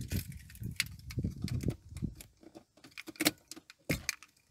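A bunch of car keys jangling and clinking as they are handled, in a run of irregular metallic clicks and rattles.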